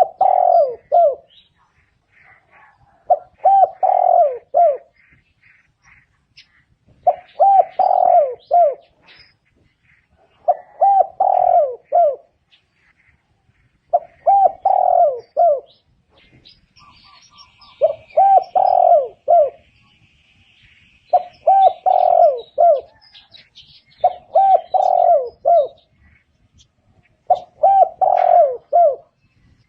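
Spotted dove cooing: a short phrase of several low coos, repeated about every three and a half seconds, nine times in all. Faint chirps of small birds come between the phrases.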